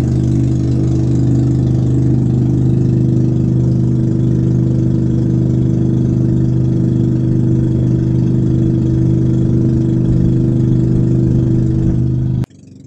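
Outrigger bangka boat's engine running steadily under way, a constant low drone. It cuts off suddenly near the end.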